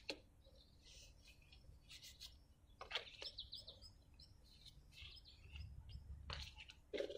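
Faint handling of cardboard game pieces: light rustles and taps as painting layers are slid and stacked, the sharpest about 3 s in and near the end. Short high chirps are scattered between them, a quick run of them just after 3 s.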